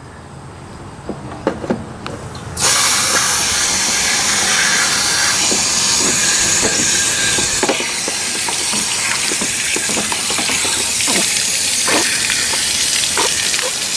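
Water rushing and spraying inside an RV water heater tank and gushing out of its drain opening as a Camco tank rinser wand is turned on to flush out sediment: a loud hissing rush that starts suddenly a couple of seconds in and stays steady. A few light knocks come before it.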